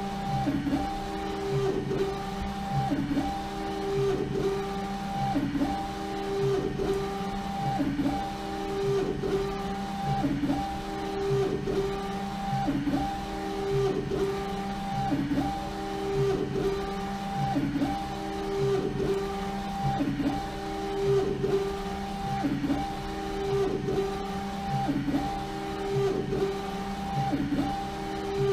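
LogoJet UVx60XL UV printer at work: the print-head carriage shuttles back and forth over a bottle on the rotary jig, with a motor whine that repeats in an even rhythm about every second and a quarter.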